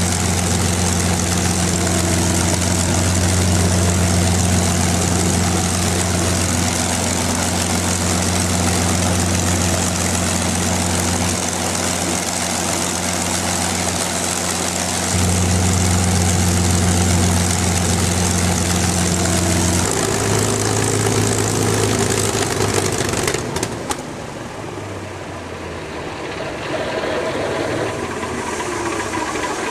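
P-51D Mustang's Merlin V-12 engine idling with a steady low drone. About two-thirds of the way through the sound changes and then drops quieter.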